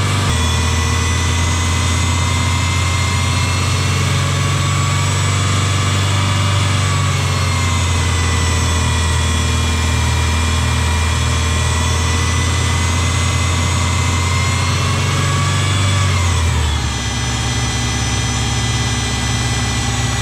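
A freshly rebuilt Subaru EJ22 flat-four engine runs steadily at idle, with a loud supercharger-like whine from a noisy power steering pump. About three-quarters of the way through, the engine speed drops and the whine falls in pitch with it.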